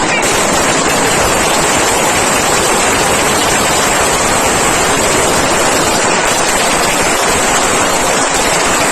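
An Asiong Sawa 500-round firecracker string going off: a loud, unbroken rattle of small bangs, so fast they run together into one steady crackle.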